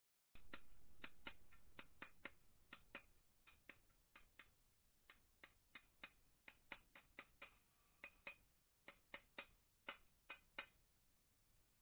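A mallet tapping at the ball bearing in an old Royal Enfield Bullet's cast alloy crankcase cover, seating it in its housing. The taps come as dozens of light, sharp knocks, unevenly spaced and often in quick pairs, about three a second.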